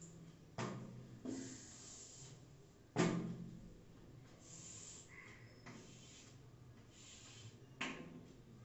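Drawing on a board: scratchy strokes with several sharp knocks as the writing tool meets the surface. The loudest knock is about three seconds in.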